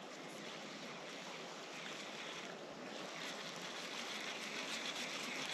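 Steady rushing wash of moving water in a creek current, with light wind, growing slightly louder near the end.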